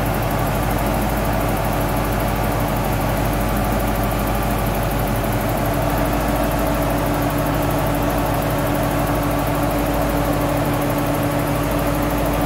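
A 1986 Porsche 928's V8 idling with a Ford Contour electric radiator fan running steadily, powered by the charging alternator: a loud, even hum and rush of air with no change in speed.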